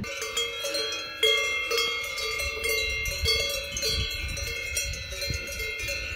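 Several cowbells on grazing cows in an alpine pasture, clanking irregularly, with bells of different pitches ringing over one another.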